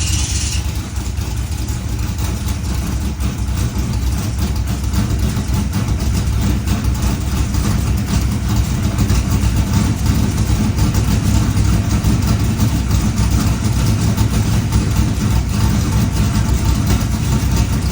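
A 1977 Corvette C3's small-block V8 idling steadily with a fresh intake manifold and rebuilt carburettor, which the owner thinks still has some timing issues. A high hiss cuts off within the first second.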